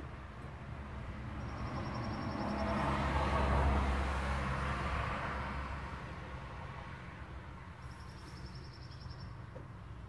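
A vehicle passing: a rumble that rises to a peak about three and a half seconds in, then fades. Two short, high, rapid trills sound faintly, one about a second and a half in and one near the end.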